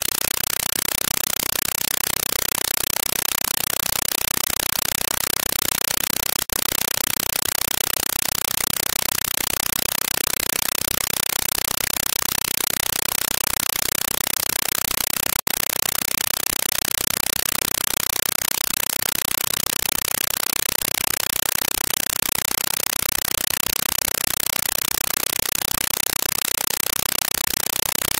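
Steady, even hiss with no distinct events in it, breaking off for an instant twice.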